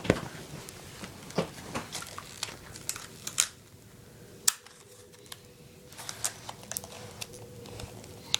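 Scattered clicks, taps and short rustles of a plastic earbud package being handled, with one sharp click about halfway through.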